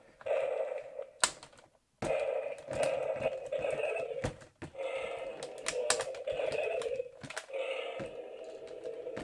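Hard plastic toy dinosaurs clicking and clacking as they are knocked together and their joints worked, over a rough growling roar from the Stomp and Strike T-Rex toy that comes and goes in stretches of one to three seconds.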